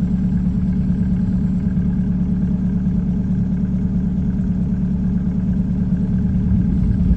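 A car engine idling steadily, its even hum unchanging throughout.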